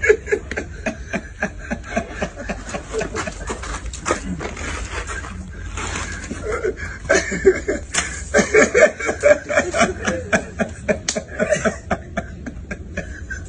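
A group of men laughing and chuckling, loudest about halfway through, with many sharp smacks scattered throughout.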